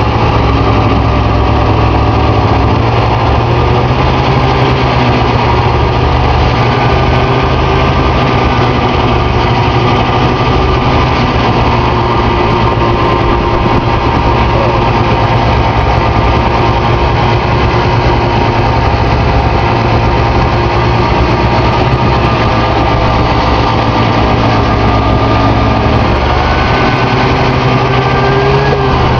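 Snowmobile engine running steadily under way, heard from on board the machine, its pitch shifting slightly now and then.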